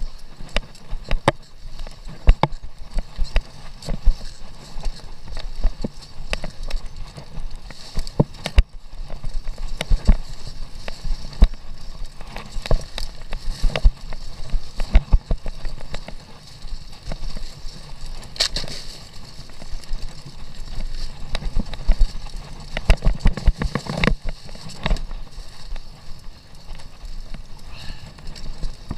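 Commencal mountain bike riding over a bumpy dirt single track: frequent irregular knocks and rattles from the bike jolting over the ground, over a steady low rumble of tyres on dirt.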